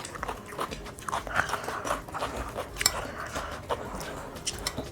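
Close-up eating sounds: chewing and mouth smacking on tawa-fried tilapia fish, with many small irregular wet clicks and crunches.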